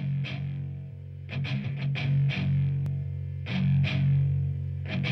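Rock background music led by a distorted electric guitar, with sustained low notes and repeated sharp hits.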